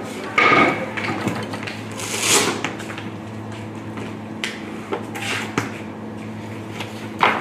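Plastic tubs knocking and scraping against a plastic crate as thick paste is tipped out of them, a few separate clatters over a low steady hum.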